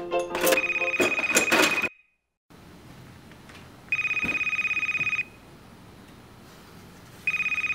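Cordless phone ringing with a fast-warbling electronic trill: three rings of just over a second each, roughly three seconds apart. The first ring overlaps background music that cuts off about two seconds in.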